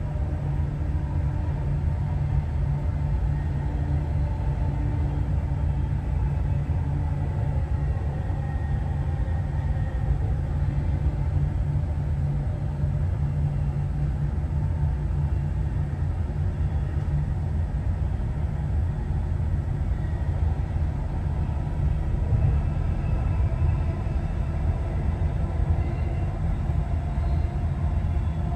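Dubai Metro train running steadily between stations: a continuous low rumble heard from inside the carriage.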